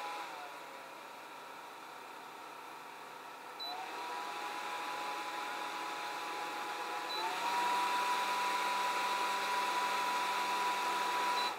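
Symphony Duet Mini personal air cooler's fan motor running with a steady whir and whine. It steps up to a faster speed twice, about four and seven seconds in, each step marked by a short beep from the touch button. Another beep comes near the end and the fan winds down.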